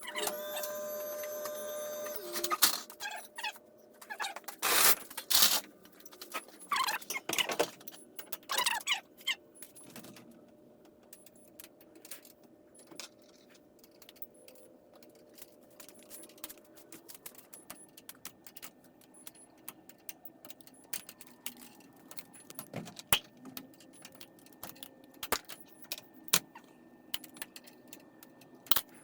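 A brief steady whine from a small motor, then scattered metallic clinks and knocks of hand tools and hardware, busiest in the first ten seconds and sparse and faint after that.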